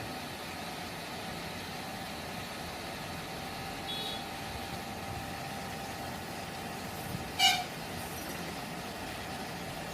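Steady background hum with a faint steady tone, a brief high beep about four seconds in, and one short horn toot about seven and a half seconds in, the loudest sound here.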